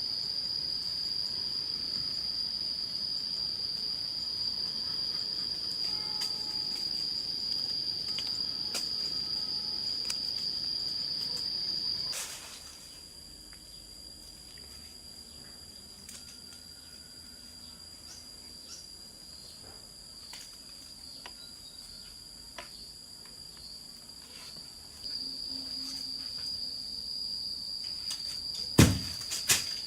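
Insects, crickets or similar, chirring in one steady high continuous drone. It drops quieter about twelve seconds in and comes back up near the end. Two sharp knocks sound just before the end.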